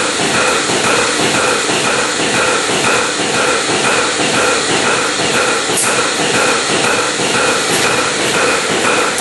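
Milking machine running on a cow: the pulsator pulses about twice a second over a steady hiss of vacuum air through the teat cups.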